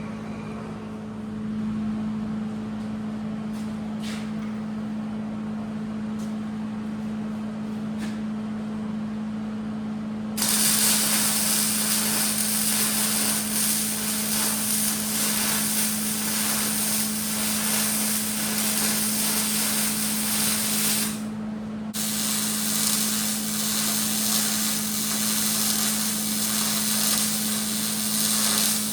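Welding arc sizzling as gussets are welded onto a 1-inch square steel tubing stand. A steady hiss starts about a third of the way in, breaks off for about a second, then resumes, over a constant low hum.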